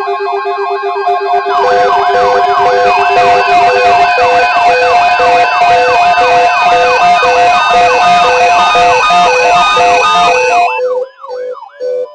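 Electronic siren-like alarm tones: a fast, repeating up-and-down wail layered over steady tones and evenly repeating beeps. It grows fuller and louder a second or two in, then cuts off suddenly near the end.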